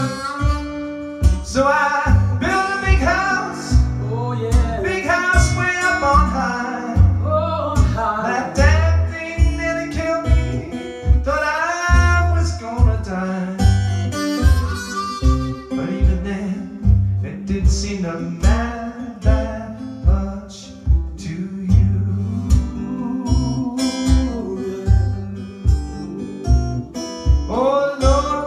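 Blues harmonica playing with bent notes over acoustic guitar keeping a steady rhythm.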